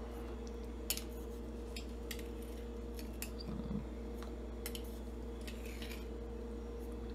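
Metal spoon scooping sugar from a glass mason jar: scattered light clinks and scrapes of metal on glass, about a dozen in all, over a steady low hum.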